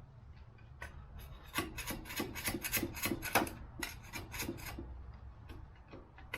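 Old head gasket material being scraped off a Ford 429 big-block engine's metal mating surface: a run of short rasping scrape strokes, about three or four a second, over a steady low hum.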